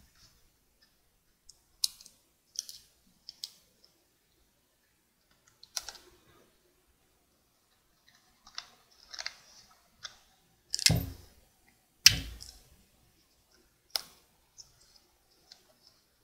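Stiff paper being handled and taped by hand: scattered clicks, crinkles and short rustles of the folded thick-paper pyramid and tape, with two louder knocks about eleven and twelve seconds in.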